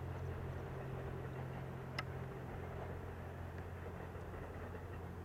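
Low, steady drone of a slow-running 87-series Twilight Express Mizukaze train's diesel engine-generators, the wheel clatter no longer heard as the train comes to a stop. A single sharp click about two seconds in.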